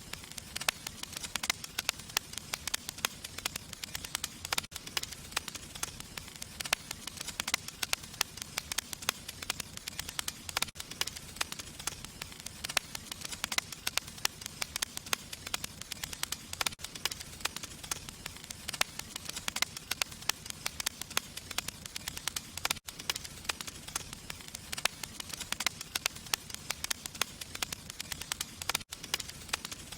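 Fire crackling and hissing: a dense, steady run of small pops and snaps, with a brief dropout about every six seconds, as in a looped recording.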